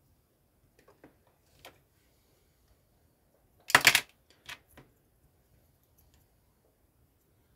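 Plastic LEGO bricks being handled: a few light clicks, then a short loud plastic clatter about four seconds in, followed by two softer clicks.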